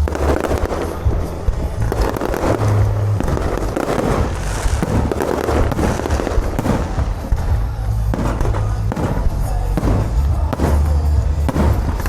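Fireworks and strings of firecrackers going off continuously, a dense run of sharp bangs and crackles, with music playing underneath.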